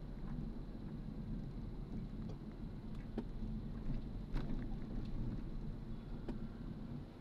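Steady low rumble of a vehicle on the move, with a few scattered light clicks or knocks.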